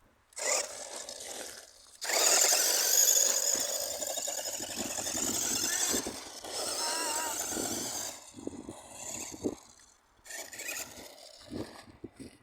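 RC car running and driving over rough ground in bursts, its motor and wheels cutting out briefly a couple of times as the throttle is let off.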